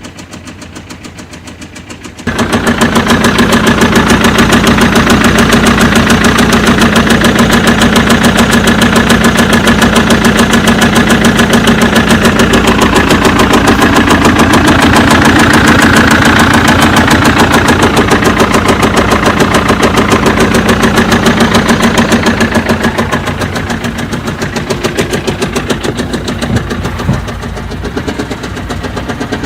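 BMW 1 Series 2.0-litre diesel engine running with a fast, even, rhythmic tapping knock, an abnormal engine noise. It gets much louder about two seconds in and eases somewhat near the end.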